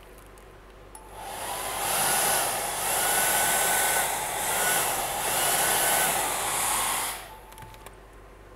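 Small handheld hair dryer blowing over wet epoxy resin, pushing the white resin into lacy sea-foam waves. It switches on about a second in, runs for about six seconds with its level rising and falling as it is moved, and then cuts off.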